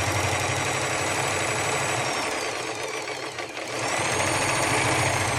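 Brother 1034D serger running, chaining off a three-thread loop with no fabric under the foot: a sign the threading is right. It slows briefly about three seconds in, then speeds up again.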